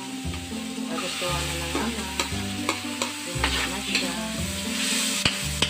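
Diced vegetables frying in a hot steel wok with sautéed onions, the sizzle growing louder about a second in as they are added. A metal spatula stirs and scrapes against the wok in repeated sharp clicks.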